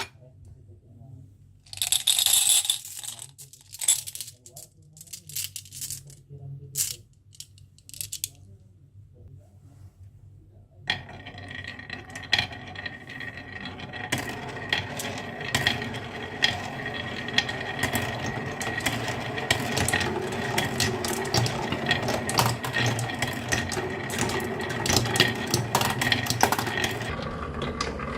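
Marbles clicking on a marble run. For about the first ten seconds there are scattered single clicks with short gaps. Then many marbles rattle down the track together in a dense, continuous clatter that builds slightly toward the end.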